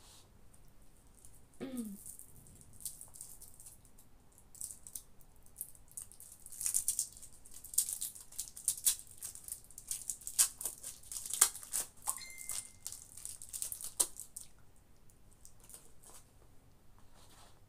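Hands picking apart crisp fried fish on a plate: a run of light, crisp crackles and clicks, densest in the middle stretch.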